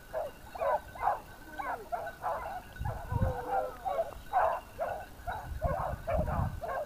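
Hunting hounds giving tongue on a wild boar's trail, a run of repeated yelping barks at about two to three a second. There are low rumbles about three seconds in and near the end.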